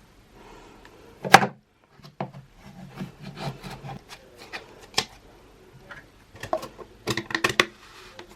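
Clear slime with Orbeez being squished and pulled by hand, giving sharp clicks and pops among softer crackling. The loudest pop comes about a second and a half in, and a quick run of pops comes near the end.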